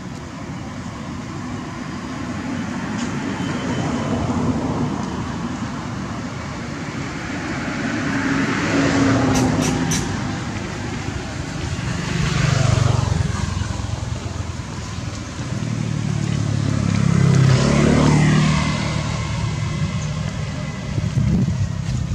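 Road vehicles passing one after another, the engine and tyre noise swelling and fading three or four times, with a few sharp clicks about nine seconds in.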